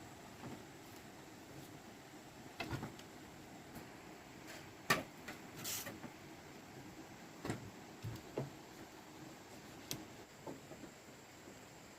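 A few separate light knocks and clicks, the loudest about five seconds in, with a brief swish just before six seconds, over a quiet background.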